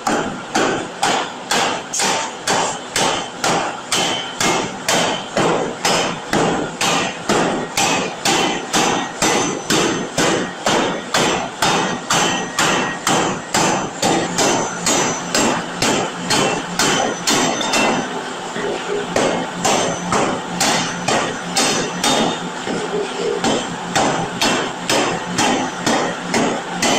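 Large open-die forging power hammer pounding a red-hot steel billet: a steady, fast run of heavy blows, about two a second.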